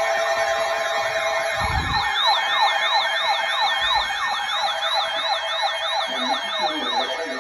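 Several electronic sirens yelping at once: rapid falling sweeps, several a second, over a steady tone. A second, higher yelp joins about two seconds in and stops near the end.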